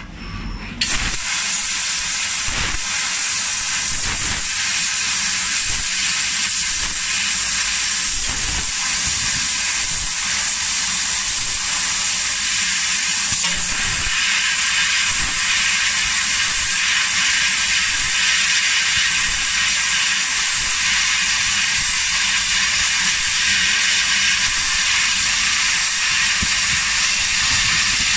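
Fiber laser cutting head cutting thin gold-coloured sheet metal, its assist-gas jet and the cut hissing steadily. The hiss starts abruptly about a second in and holds level throughout.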